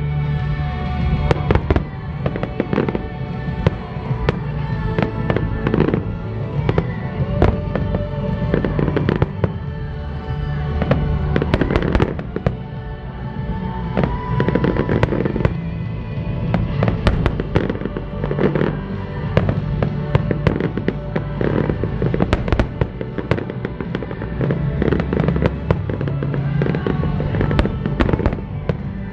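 Fireworks barrage: many shells bursting in quick succession with crackling, over a pop song played on loudspeakers with a steady beat.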